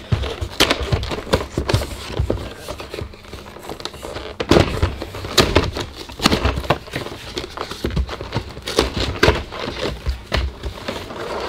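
A cardboard trading-card collection box and its plastic blister tray being opened and handled by hand. Irregular crinkling and crackling of plastic and cardboard, with scattered sharp clicks and knocks.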